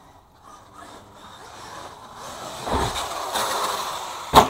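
RC monster truck accelerating hard, its motor and tyres getting louder over the first few seconds. Near the end comes one sharp, loud thump as the truck lands from a jump.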